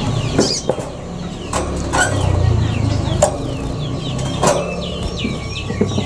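Chickens clucking, with small birds chirping in quick short calls and a few sharp clicks.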